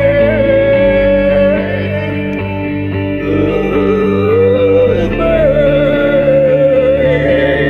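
Music: a held, wavering melody note over sustained low chords, with a slight dip in loudness about two seconds in.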